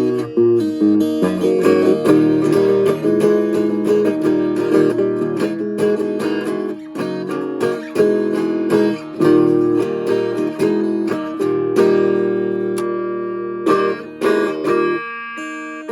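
Solo guitar played clean, strummed chords mixed with picked single notes, each ringing out before the next attack.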